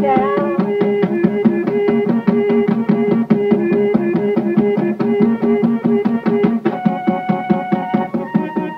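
Background music with a steady percussive beat under sustained, changing pitched notes.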